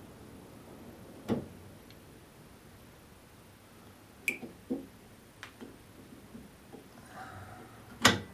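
Scattered clicks and knocks of a plastic hand wheel and a loose nut being handled and fitted onto a wood lathe's tailstock, the loudest knock near the end.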